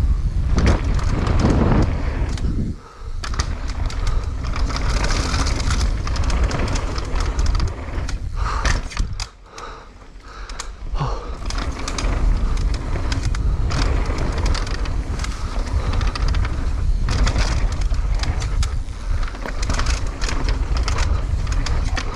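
Mountain bike riding fast down a dirt trail: a steady rush of tyre noise on loose dirt and wind on the camera microphone, with constant rattling and clatter. The noise drops away briefly twice, about three seconds in and again for a second or so near the middle.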